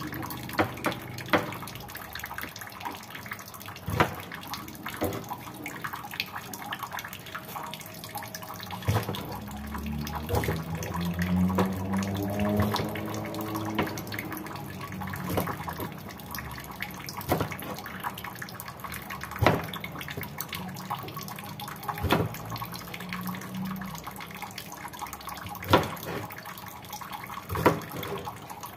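Yardlong beans snapped by hand into short pieces: a crisp snap every second or few, irregularly spaced, over a steady hiss.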